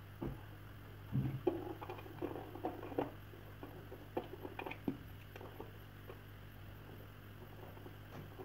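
Wet, squeezed-out cooked rape leaves being handled and dropped into a plastic bowl: a run of soft, irregular squishes and pats, most of them in the first five seconds.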